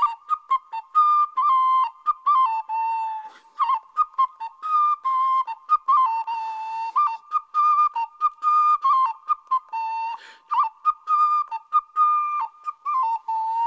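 A high-pitched pipe playing a solo melody of short, quick notes over a narrow range, with small flicks of pitch between many of the notes.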